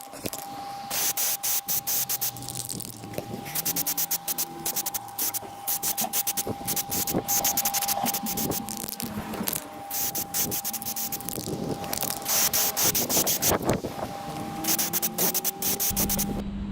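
Aerosol spray-paint can spraying in rapid short bursts, over and over in clusters.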